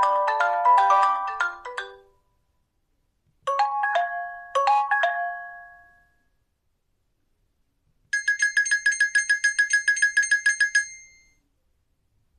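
Nokia 2780 Flip phone playing its default ringtones in turn. A melodic tune ends about two seconds in; after a pause come two short chiming phrases; after another pause comes fast high beeping, about seven beeps a second for about three seconds.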